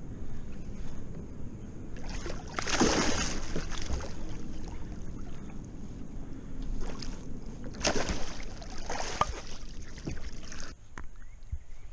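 A fish shot with a bowfishing arrow thrashing and splashing at the surface beside a kayak as it is hauled in on the line. There are two bouts of splashing, about three seconds in and again around eight seconds in.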